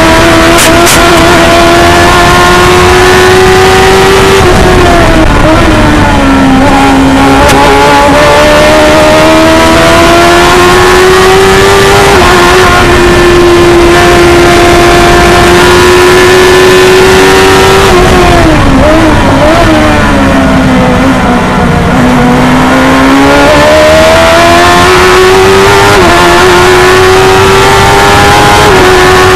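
The 1000cc engine of a Stohr F1000 formula race car at high revs, heard onboard. The pitch holds high, falls away twice as the car slows, about five seconds in and again around twenty seconds in, and climbs back as it accelerates, with small steps near the end.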